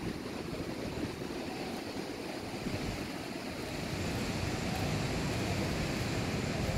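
Steady rushing noise with a low rumble, growing a little louder about four seconds in.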